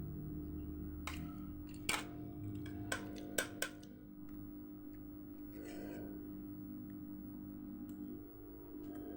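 Spoon clinking against a plate while eating, five sharp clicks in the first few seconds, over a steady low hum.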